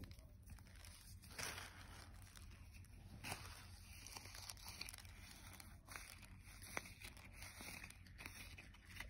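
Faint, intermittent crinkling and rustling with a few soft clicks: hands handling foam beads and a balloon while filling a homemade stress ball.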